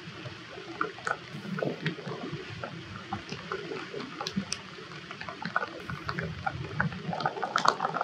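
Rainwater trickling and dripping, with many small, irregular drips.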